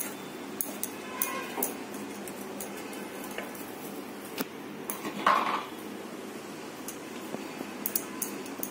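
Light clinks and taps on a stainless-steel plate lid and pot as dough is pressed around the rim to seal the pot for dum cooking. A louder ringing clink comes about five seconds in.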